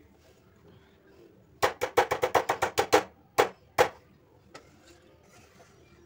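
A metal utensil rapping on a steel cooking pot, knocking cake batter off into a baking tin. There are about ten quick taps in a burst of under a second and a half, then two more single taps.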